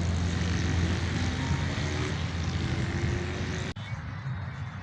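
A steady low rumble under a dense noisy din, cut off abruptly about three-quarters of the way through, leaving a quieter background.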